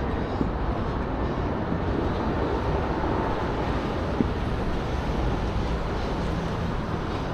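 Steady city street noise: a low, even rumble of road traffic.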